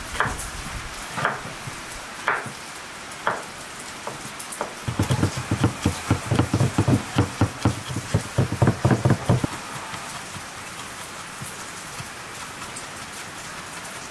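Large kitchen knife chopping garlic on a wooden cutting board: a few single cuts about a second apart, then a quick run of chopping strikes, about four or five a second, from about five seconds in to nearly ten, over a steady hiss.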